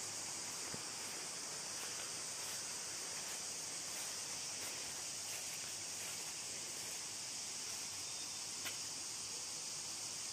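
A steady, high-pitched drone of an insect chorus, with a faint click or two, one near the end.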